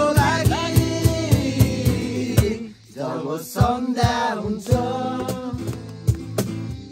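Music: a song with singing, guitar and a steady drum beat, with a brief drop in level about three seconds in.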